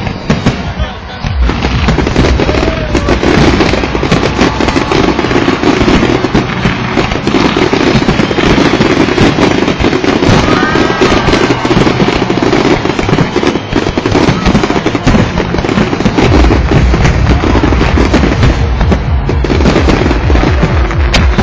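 Fireworks display going off in a dense, unbroken barrage: rapid crackling and banging of bursting shells.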